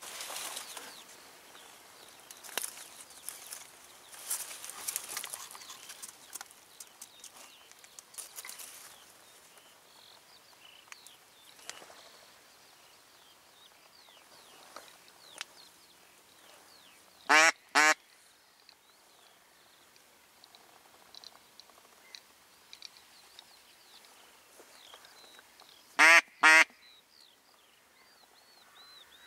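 A duck quacking close by: two loud double quacks, the first about 17 seconds in and the second about nine seconds later. Before them, in the first several seconds, a light rustling and crackling.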